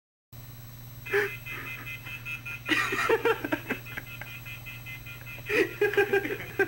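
A moment of dead silence, then a steady low hum with three short bursts of voices or laughter, about one, three and nearly six seconds in.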